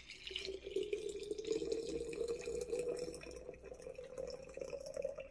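Liquid poured in a steady stream into a small vessel, with a tone that rises slowly as it goes on.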